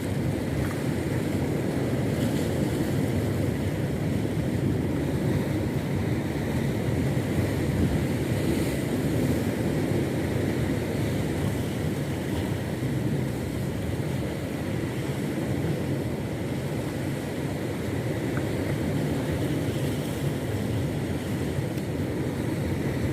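Steady low rumbling wash of a small boat out on the sea, with wind on the microphone, unchanging throughout.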